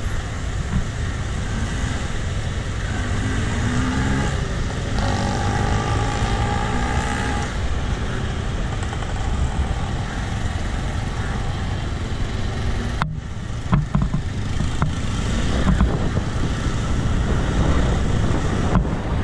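Road traffic heard from a moving bicycle: a steady wash of passing vehicles, with a motor vehicle's engine rising and then holding a steady pitch a few seconds in. Wind rumbles on the microphone throughout.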